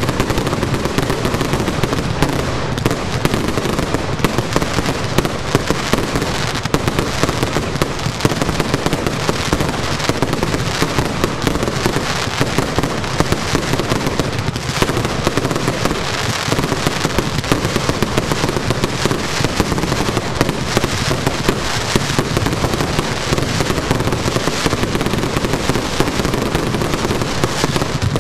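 Fireworks finale barrage: many shots launching and bursting overhead in quick succession, a dense unbroken run of bangs with no pause.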